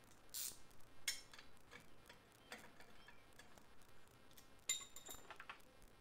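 Faint metal clinks and clicks as a baffle is worked into the single exhaust tip of a Goodwin Racing Roadster Sport Super Street exhaust, with one sharper ringing clink about two-thirds of the way in.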